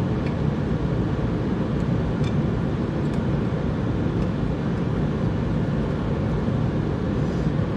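Steady low rumbling noise with no change in level, and a few faint clicks now and then.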